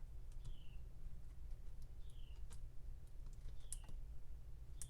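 Small, light clicks and ticks of tiny plastic and metal parts being handled while fitting an iPod's internal connector. A short, high falling chirp recurs about every second and a half over a steady low hum.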